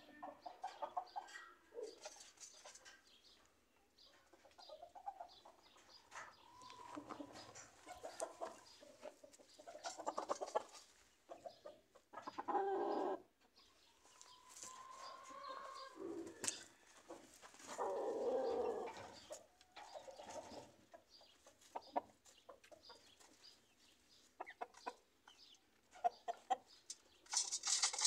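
Gamecock roosters clucking and calling off and on, some calls longer and louder than others, with a short rustling burst near the end.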